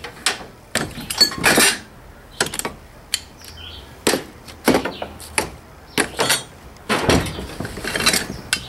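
Pieces of scrap metal clanking and clinking as they are handled and tossed about in a pickup truck bed: a dozen or so sharp, irregular knocks.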